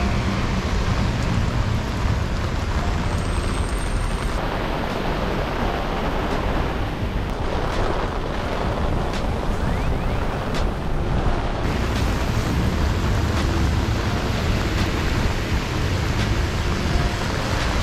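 Heavy rain on a city street and on an umbrella held over the microphone, a steady wash of noise with a low rumble from traffic on the wet road.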